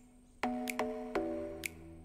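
Background music: instrumental, a few struck notes with light ticks between them.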